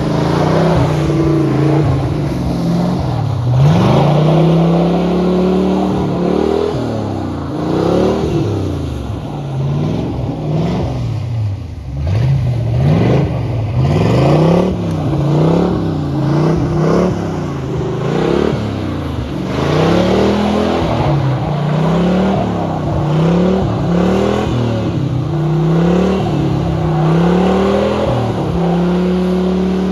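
V8 engine of a lifted, four-wheel-drive Nissan 240SX revving hard over and over, its pitch rising and falling every second or two as the car spins donuts on ice.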